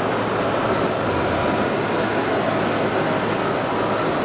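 Radio-controlled scale model construction machines and trucks running: a steady mechanical noise with a faint thin high whine over it.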